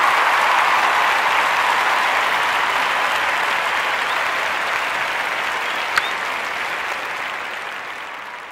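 Steady rushing noise from a camera riding on a mountain bike, wind and tyre noise together, fading out gradually over the second half. A single sharp click about six seconds in.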